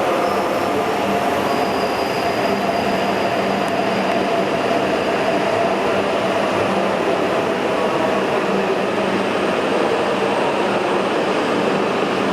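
Steady running noise of an E5 series Shinkansen train at the platform: an even rumble with a low hum and a higher whine held through.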